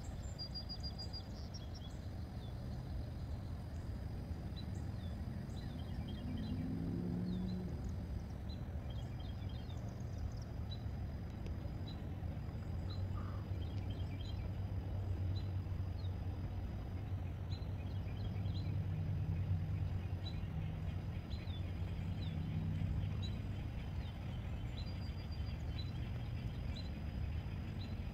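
Gusty wind rushing over the microphone, with a low rumble that swells through the middle and birds chirping faintly in the background.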